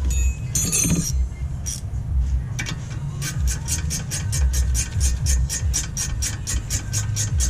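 Ratchet wrench clicking rapidly, about five clicks a second, as a bolt on the brake assembly is run in, starting a couple of seconds in after a short metallic clatter. A steady low rumble sits underneath.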